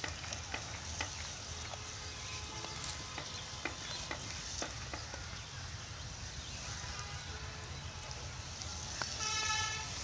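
Pigs rooting through plastic litter, giving scattered crinkles and crackles over a steady low hum. A vehicle horn honks once briefly near the end.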